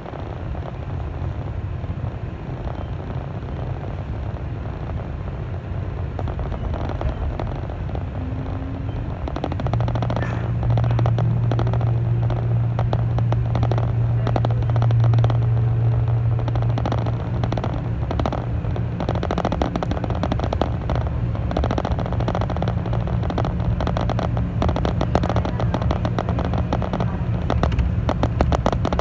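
Inside a 211-series electric multiple-unit train, rolling and gathering speed. About ten seconds in a low motor hum sets in and the sound gets louder, over steady wheel-and-track rumble and a rapid clatter of clicks.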